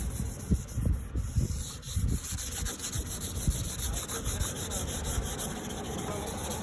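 Wet sandpaper scrubbed back and forth over a plastic headlight lens, a steady run of rubbing strokes, as the lens's oxidation is sanded off.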